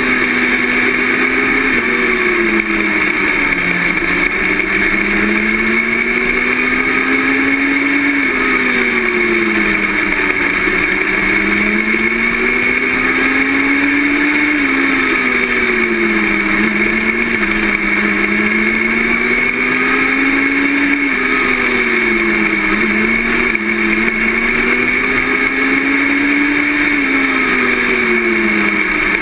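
Mini sprint race car engine heard from the cockpit at racing speed. Its pitch rises and falls in a repeating cycle about every six to seven seconds, climbing under throttle and dropping as the driver lifts for each turn of the dirt oval.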